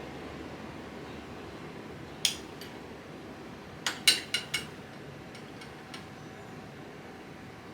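Sharp metallic clinks of hand tools against metal: one about two seconds in, then a quick run of four a couple of seconds later, and a few faint taps after, over a steady low background hum.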